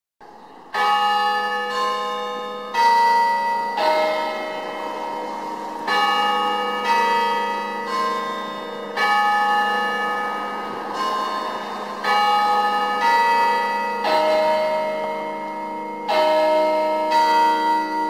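Church bells ringing a run of different notes, one strike about every second, each note ringing on under the next. The ringing starts just under a second in, after silence.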